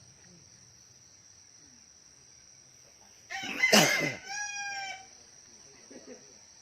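A rooster crows once, about halfway through, over a steady high drone of crickets.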